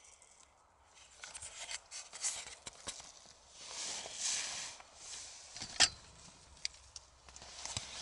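Irregular rustling and scraping close to the microphone, with a few sharp clicks, the loudest just before six seconds in: handling noise as the camera is moved and reframed.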